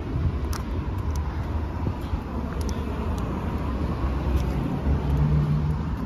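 Steady low rumble of road traffic, with a few faint clicks and a brief low hum about five seconds in.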